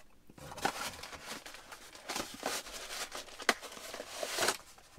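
Cardboard box and plastic packaging rustling and crinkling as they are handled, in irregular rustles with a few sharper crackles.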